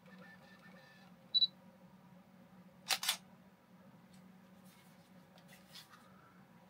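Canon EOS 2000D DSLR giving its short high focus-confirmation beep, then about a second and a half later the shutter firing with a sharp double click of mirror and shutter.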